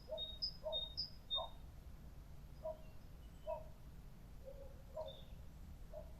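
Park ambience: birds calling, with a quick run of high, short chirps in the first second and a half and lower short calls recurring about once a second, over a steady low background rumble.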